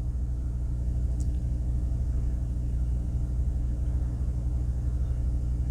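A steady low hum with several even tones, unchanging throughout, and a faint tiny click about a second in.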